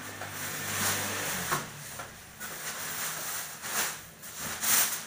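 Clear plastic sheeting draped over furniture rustling and crinkling as it is handled, in uneven swishes, with louder ones about a second and a half in, near four seconds and near the end.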